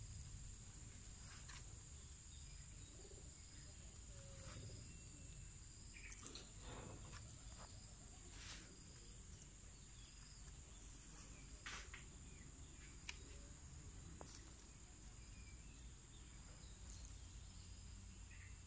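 A steady high-pitched insect chorus, with scattered short clicks and chirps over it.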